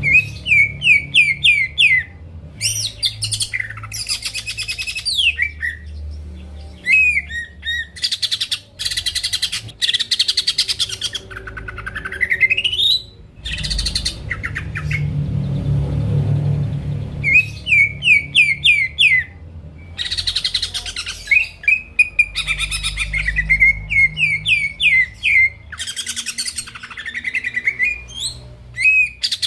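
Cucak ijo (greater green leafbird) singing a loud, varied song: runs of quick repeated whistled notes, harsh buzzy phrases, and a long rising slurred whistle partway through.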